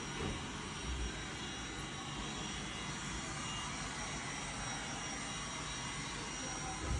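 Roomba robot vacuum running with a steady whirring drone of its motor and brushes, with a low bump about a second in and another near the end.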